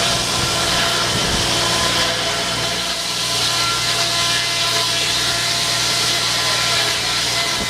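Belt-driven circular sawmill blade cutting steadily through a log, a continuous high sawing hiss over the steady hum of the engine driving it.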